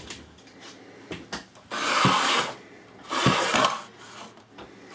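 Two scraping rubs of just under a second each, close together, with a few light clicks and knocks around them.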